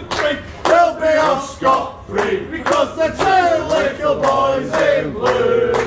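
Men singing a song together, with hands clapping in time about twice a second.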